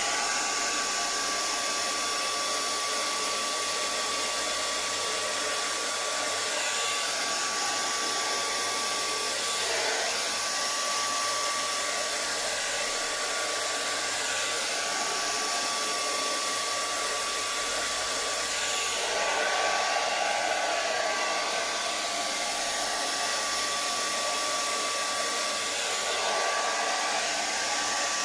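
Handheld hair dryer running steadily: a rush of air with a thin, steady motor whine, swelling slightly about ten seconds in and again around twenty seconds in.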